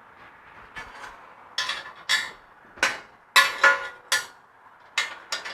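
Steel bolts and nuts clinking against each other and against metal as they are picked up and handled. There are about eight sharp, ringing clinks, irregular but roughly every half second.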